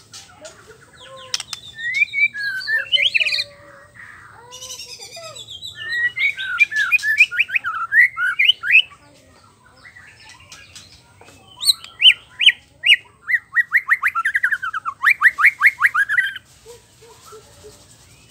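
Male white-rumped shama singing loudly in full song: varied whistled phrases and glides, then fast runs of rapid repeated trill notes, in bouts broken by short pauses.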